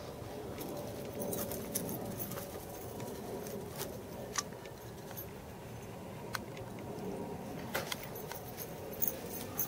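Outdoor ambience: a low steady background noise with scattered short, sharp clicks throughout.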